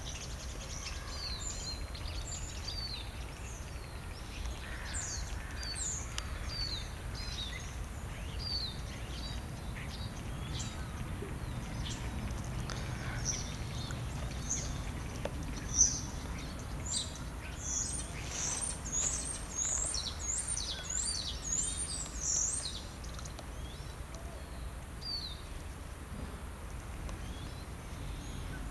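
Small birds chirping, many short high calls throughout with a quick, dense run in the middle, over a steady low rumble. A single sharp knock stands out about sixteen seconds in.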